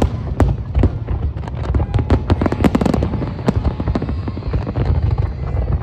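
Aerial fireworks going off in quick succession: many sharp bangs and crackling shell bursts over a steady low rumble, thickest about two to three seconds in.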